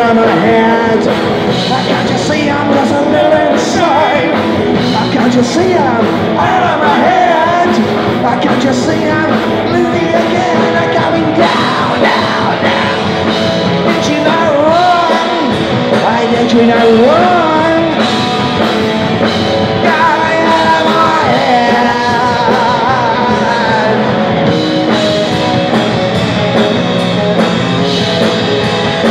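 Live punk rock band playing a song at full volume: a singer's vocals over electric guitar, bass guitar and drums.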